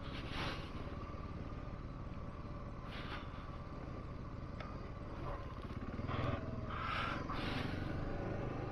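Single-cylinder 650 cc dual-sport motorcycle running steadily while being ridden, over a heavy rumble of wind on the microphone. A few short knocks come through, and the sound grows louder and busier about six seconds in.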